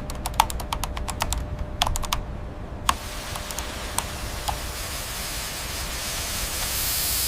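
A quick run of sharp clicks, about eight a second for a second and a half, then a few scattered clicks over a hiss that grows louder toward the end.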